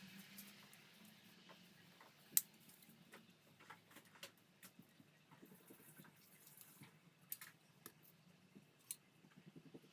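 Scattered light clicks and taps, irregular and a second or so apart, with one sharper click about two and a half seconds in, over a faint low hum.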